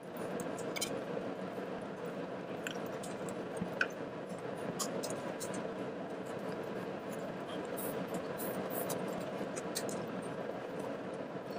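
A knife and metal tongs carving a roast pheasant on a plastic cutting board: scattered light clicks, ticks and scrapes, one sharper knock a little under four seconds in, over a steady background hum.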